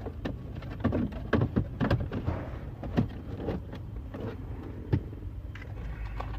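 Irregular clicks and knocks of dashboard trim and wiring connectors being handled, with a few sharper knocks, over a steady low hum.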